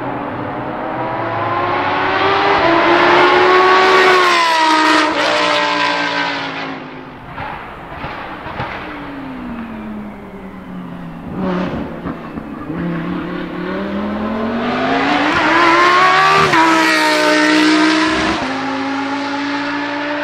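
2018 Lamborghini Huracán Super Trofeo EVO race car's 5.2-litre naturally aspirated V10 revving up hard, with a gear change about five seconds in. The revs then fall to a low point near the middle and climb again to a second peak, with another shift near the end.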